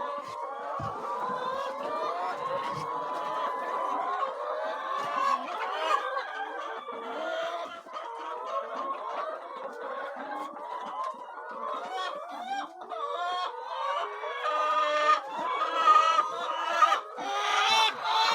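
A flock of chickens clucking and calling all together, many overlapping calls.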